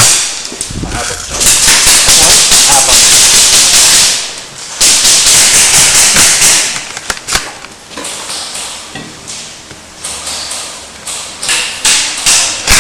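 Airsoft electric gun firing on full auto close to the microphone: two long bursts of about two and a half and two seconds, then shorter bursts and single shots near the end.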